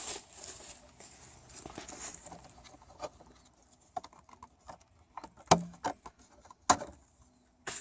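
Handling noise: rustling, then scattered sharp clicks and knocks, two of them louder near the end.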